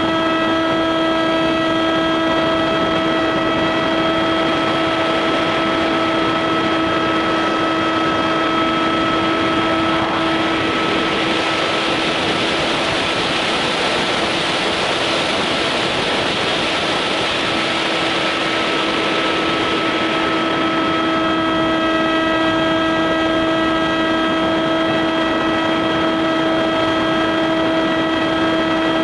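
Small RC foam plane's motor and propeller whining steadily, picked up by a camera on the plane's nose, with a rush of wind over the microphone. For about ten seconds in the middle the whine fades under a louder rush of air as the plane is forced down, then the whine comes back.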